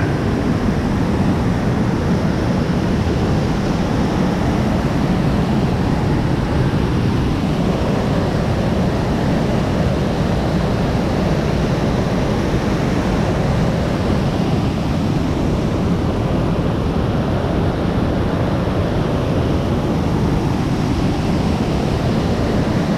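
Waterfall rushing in a steady, loud roar of falling water, running high with a lot of water.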